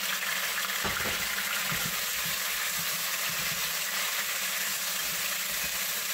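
Seasoned oxtail pieces sizzling steadily as they brown in hot oil in a pot, with a few low knocks in the first couple of seconds.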